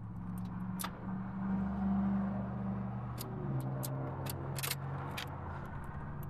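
An old car's engine idling, its hum stepping down to a lower, steady idle about halfway through, with a few sharp clicks from inside the cabin.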